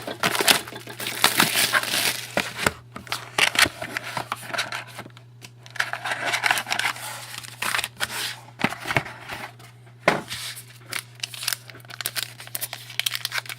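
Crinkling and tearing of the wrapping on a sealed box and pack of hockey trading cards being opened by hand, in irregular rustles and rips. A steady low electrical hum runs underneath.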